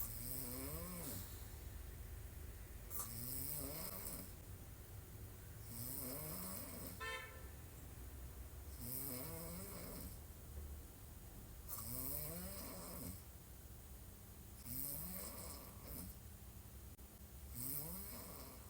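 A young woman snoring while lying on her back, one snore about every three seconds, each rising in pitch. The snore about seven seconds in has a buzzing flutter.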